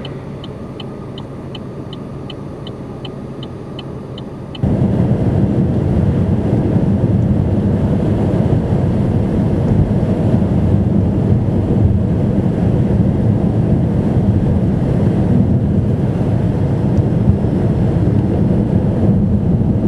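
Steady running noise of a vehicle on the road, with a quick, even ticking of about three ticks a second for the first four and a half seconds. Then the sound jumps suddenly to a much louder, steady rumbling noise that carries on.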